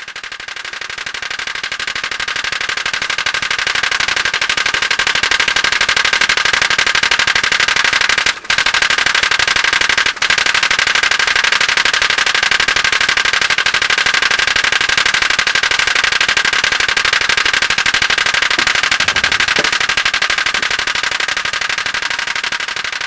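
Pop-pop (putt-putt) boat's small brass steam engine running, a rapid, steady popping. It fades in, drops out briefly twice in the middle, and fades out near the end.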